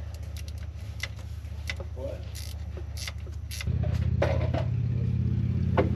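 A motor running with a steady low hum that gets louder about two-thirds of the way through, with light metallic clicks and clinks of tools and parts over it.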